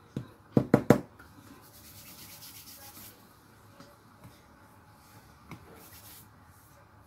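Three quick sharp knocks close together about a second in, then hands rubbing together and over a baby's skin, a soft hiss that comes in short stretches.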